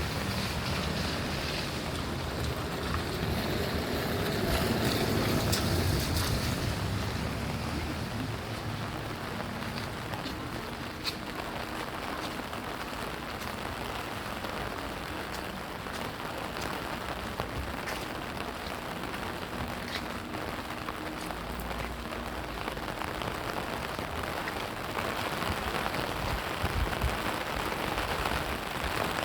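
Steady rain falling, an even hiss with a few sharp drip ticks. A low rumble runs under it for the first several seconds and then fades.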